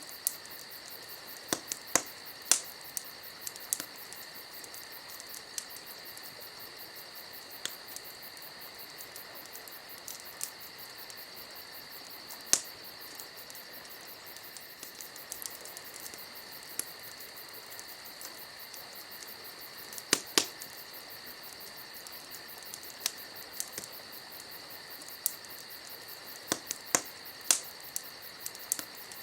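Campfire crackling with sharp, irregular pops, some in quick clusters, over a steady, high-pitched chirring of insects.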